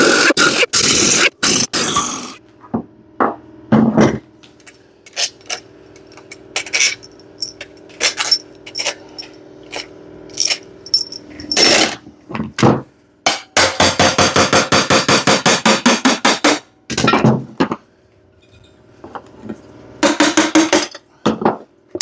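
Air impact wrench hammering the crankcase cover bolts loose in several short bursts of rapid rattling, the longest lasting about three seconds, with clinks of loose bolts and tools set down on metal in between.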